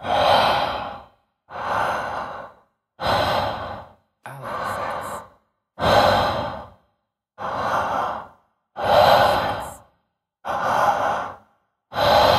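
A man breathing slowly and loudly in and out, one full breath about every three seconds. Each inhale and exhale lasts about a second with a short pause between, the two sounds alternating louder and softer.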